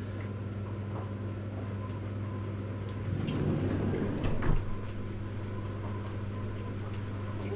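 A steady low machine hum, with a louder, noisier stretch between about three and four and a half seconds in.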